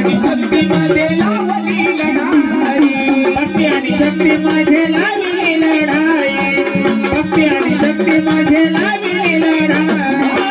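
Live Marathi gondhal devotional music: a keyboard holding steady low notes under a melody, with sambal drums and a hand-played barrel drum keeping a busy rhythm.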